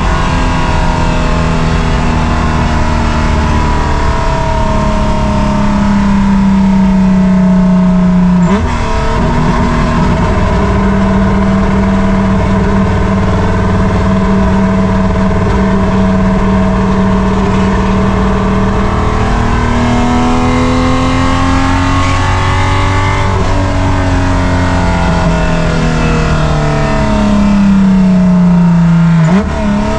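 A race car engine held at high revs under load. Its pitch climbs gradually, then drops sharply about nine seconds in and again near the end, like upshifts, before climbing again.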